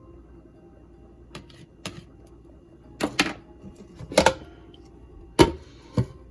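A series of sharp knocks and clicks, some coming in quick pairs, over a faint steady hum.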